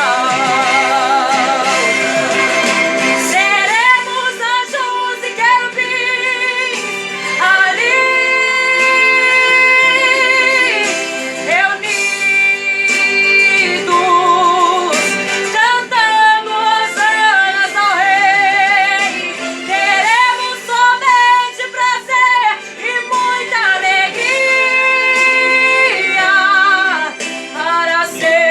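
Female voice singing a gospel song over backing music, with long held notes carrying a wide vibrato and melodic runs between them.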